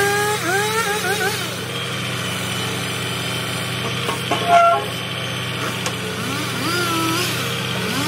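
A heavy diesel truck engine idling steadily. Short rising and falling pitched tones sound over it near the start and again near the end, and a brief, louder sound comes about four and a half seconds in.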